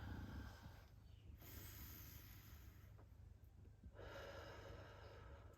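A person breathing slowly and softly, three long airy breaths about two seconds apart.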